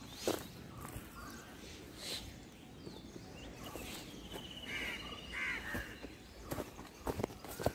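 Footsteps crunching over dry leaves and grass, a few scattered steps. About halfway through, a bird calls twice with a thin high trill.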